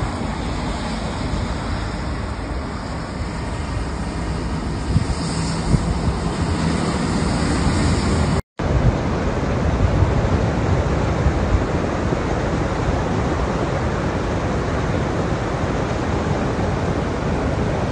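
Steady wind rushing on the microphone over a wet road. After a brief break about halfway, it gives way to a denser, even rush of muddy rainwater runoff flowing down over rocks.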